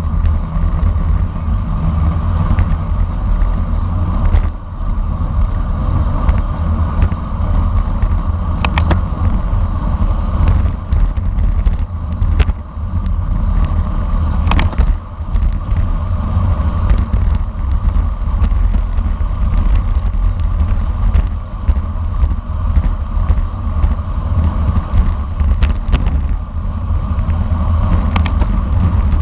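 Wind rumbling on the microphone of a camera riding along on a bicycle at race speed, with a few sharp clicks.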